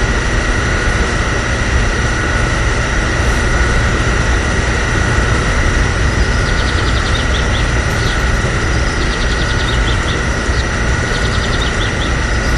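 A motor running steadily with a low rumble and a constant high whine. Faint short chirps come in from about halfway.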